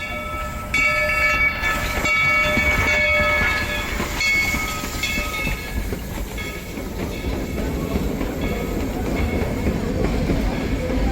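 Steam locomotive whistle blowing a chime in long blasts through the first half, strongest about a second in. Under it and after it comes the steady rumble and clatter of the moving train.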